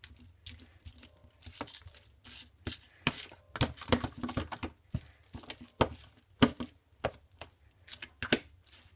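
A fork mashing hard-boiled eggs in a plastic tub: irregular clicks and short scrapes as the fork strikes and drags against the container.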